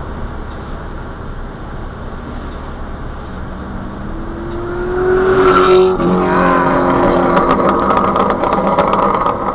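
Corvette V8 engine accelerating hard, heard from inside the cabin over road and tyre noise. Its pitch rises for about two seconds and breaks briefly about six seconds in at a gear change, then the engine pulls on loudly.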